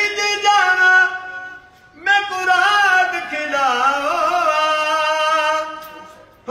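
An elderly man singing without accompaniment, in long held notes with wavering ornaments, in two phrases with a short breath between them; the second phrase fades away near the end.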